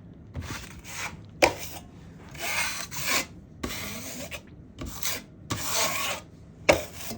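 Drywall knife scraping and spreading joint compound over a mesh-taped patch in repeated short strokes, with two sharp knocks of the blade.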